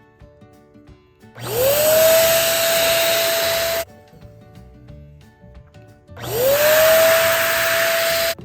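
Electric balloon pump running twice, about two and a half seconds and then about two seconds: its motor whine rises as it spins up, holds steady while air rushes out, then cuts off suddenly, inflating a balloon. Quiet background music plays between the runs.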